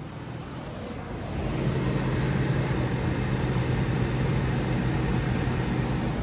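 An appliance's electric fan motor running with a steady hum and rush of air. It builds up over the first second and a half, holds steady, and eases off near the end.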